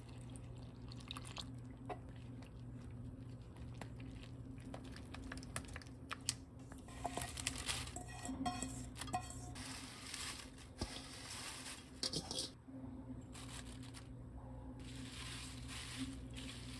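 Pancake batter being mixed by hand in a stainless steel bowl: water poured onto the flour, then wet stirring and scraping. Toward the end a spatula folds chives and Korean mint leaves into the batter, with a crunchy rustle of leaves. A steady low hum runs underneath.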